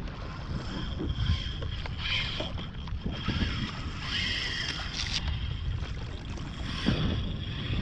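Wind buffeting the microphone over water splashing and lapping against a paddled kayak, with louder swishes of paddle strokes about two, four and seven seconds in.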